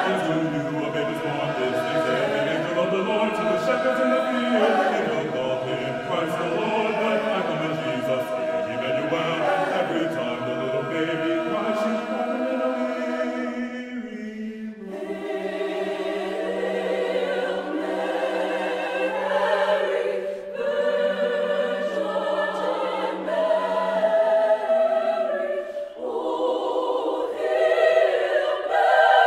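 Mixed choir of men and women singing in parts. About halfway a phrase ends in a brief dip, then a long steady low note is held under the moving upper voices before the choir swells again near the end.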